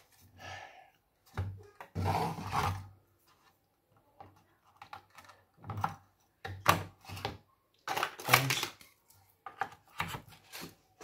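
Irregular clicks, knocks and short rattles of hands seating a CPU cooler on a computer motherboard and handling its fan cable, with the loudest knocks about two and eight seconds in.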